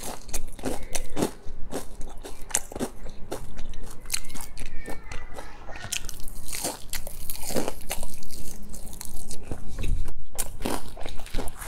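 Close-miked biting and chewing of a piece of deep-fried battered food, a dense run of sharp crunches.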